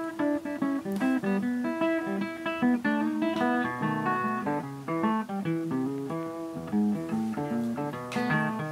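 Background music: an acoustic guitar playing a quick plucked melody over a bass line.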